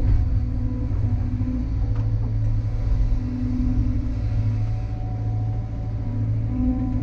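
Cat 320 excavator's diesel engine running under load, heard from inside the cab, with a hydraulic whine that swells and eases in stretches of about a second as the boom swings and the bucket dumps mud into a dump truck.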